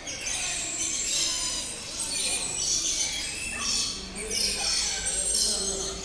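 Many aviary birds chirping and chattering at once, a dense high-pitched chorus of short overlapping calls and trills.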